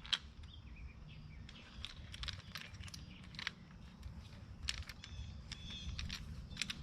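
Faint scattered clicks and rustles of a metal band clamp and lay-flat hose being handled as the clamp is worked onto the hose end, with birds chirping in the background.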